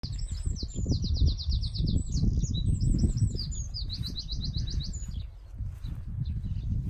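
A songbird sings fast trills of short falling notes, about ten a second, for the first five seconds or so. Under it runs a louder, continuous low rumble.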